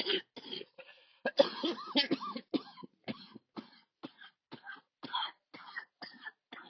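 A person coughing over and over in a long run of short coughs, two or three a second. Some coughs carry a wheezy, pitched sound, a sign of labored breathing.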